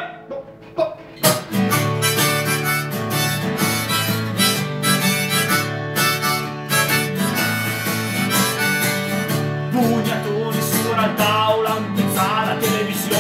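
Harmonica solo over a guitar accompaniment, starting after a brief lull about a second in.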